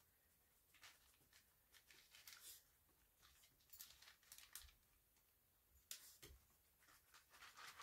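Faint, intermittent rustling and crinkling of a plastic zip-top bag as a painted canvas is worked out of it, in short scattered crackles.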